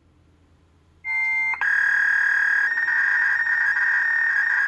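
Electronic emergency-broadcast alert tone: a brief steady tone about a second in, then a change of pitch to a long, loud, steady tone that cuts off near the end.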